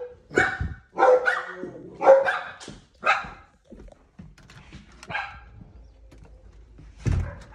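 A dog barking repeatedly: about six sharp barks in the first three seconds, one more about five seconds in, and a loud burst with a low thump near the end.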